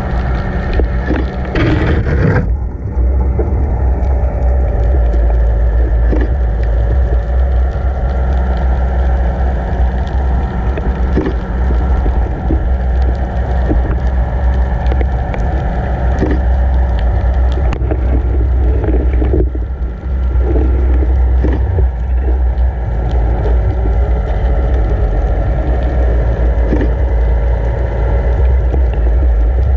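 Steady underwater rumble of water rushing past a towed camera housing, with the continuous hum of the towing boat's motor carried through the water. Occasional short knocks and clicks, a cluster of them about two seconds in.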